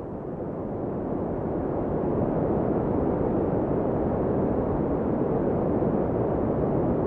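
Sea waves: a steady, even wash of surf that fades in over the first two seconds and then holds level.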